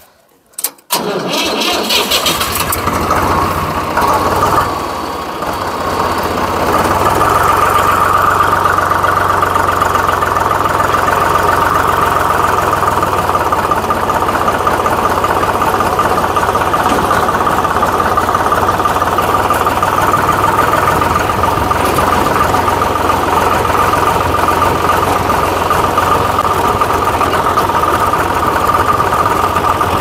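A small tractor engine is started about a second in, then runs steadily, settling into a constant loud running note from about seven seconds on while the tractor is under way.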